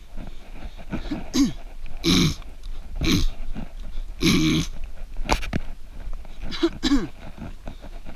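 A runner breathing hard, with loud exhalations about once a second, some of them voiced like a grunt or a throat-clear.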